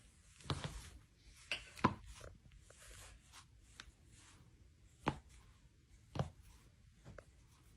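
Spine joints cracking during a back adjustment: a series of sharp pops, two close together about two seconds in and two more loud ones around five and six seconds, with smaller clicks in between.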